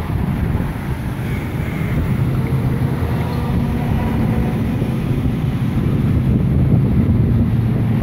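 Wind buffeting the microphone with a low road-traffic rumble. A low, steady engine hum grows stronger in the second half.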